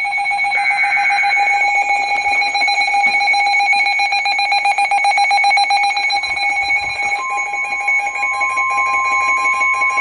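NOAA weather radios sounding their alert alarms: shrill electronic beeping, pulsing rapidly. A short warbling data burst of the SAME alert header comes about a second in. About seven seconds in a steady single tone joins, the 1050 Hz NOAA weather radio warning alert tone.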